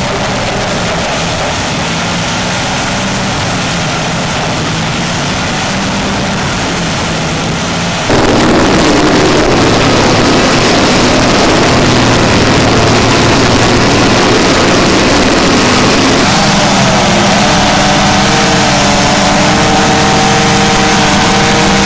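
Vermeer TG7000 tub grinder running, its engine and grinding of logs making a steady heavy machine noise; the sound steps up suddenly and gets louder about eight seconds in.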